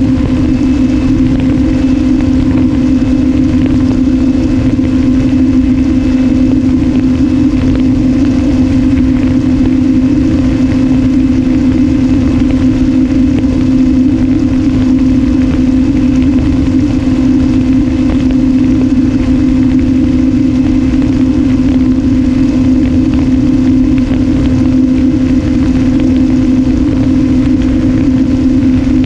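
Electric motor and propeller of an RMRC Strix Strato-Surfer FPV wing giving a steady drone in cruising flight, heard from the camera mounted on the airframe, with wind rushing underneath.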